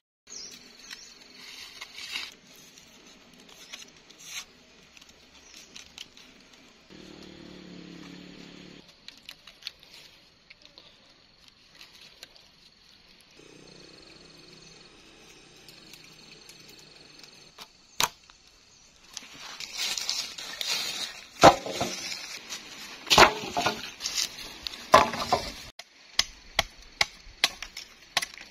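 A blade chopping into a wooden pole. Faint rustling at first, then about two-thirds of the way in a few loud, heavy strikes, followed near the end by a quicker run of lighter chops, two or three a second.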